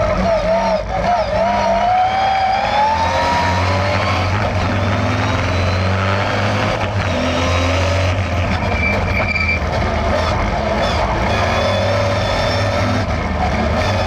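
Race-tuned Austin Healey 3000 MkII's 3-litre straight-six, on triple Weber carburettors with a modified exhaust, running hard as the car is driven, heard from inside the cabin. Its pitch rises over the first few seconds as the engine revs up, then it holds a steady drone.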